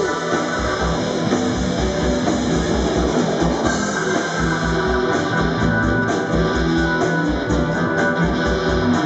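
Live rock band playing an instrumental passage: electric guitar over bass and a drum kit keeping a steady beat.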